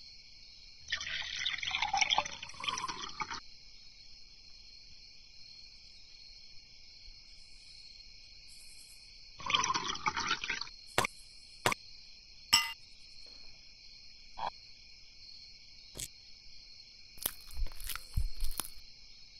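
Liquid poured into a glass twice: a pour of about two and a half seconds, then a shorter one of about a second from a glass flask. A steady high hiss runs underneath, and sharp clicks and a short cluster of knocks follow in the second half.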